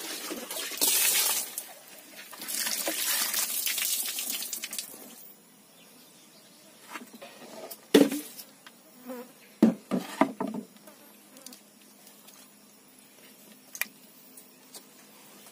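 Two bursts of rustling noise, then a few sharp knocks and thuds as whole fish are handled from a woven bamboo basket into a clay pot.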